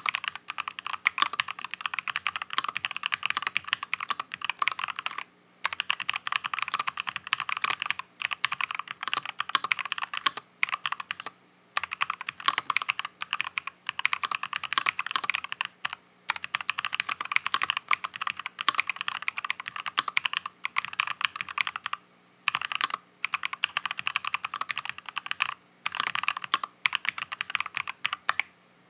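Continuous fast typing on a mechanical keyboard fitted with stock, unlubricated Faker Holy Panda tactile (non-clicky) switches: a dense stream of keystroke clacks, broken by short pauses every few seconds.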